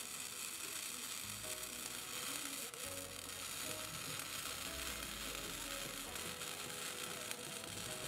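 Arc welding on steel flat bar: the welding arc makes a steady, unbroken hiss with crackle, from a slag-producing welding process. Background music plays underneath.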